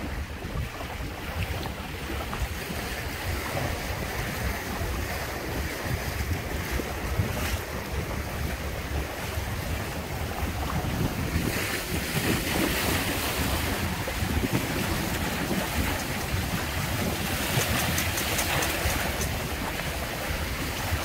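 Wind buffeting the microphone over water rushing and splashing past the hulls of a Windrider 17 trimaran under sail in choppy water. The hiss swells louder for a couple of seconds about halfway through and again near the end.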